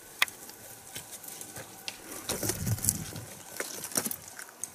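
Footsteps of hikers on a rocky creek bed: irregular crunches and scrapes of boots on loose stones and gravel, with a sharp click about a quarter second in and a busier stretch of steps past the middle.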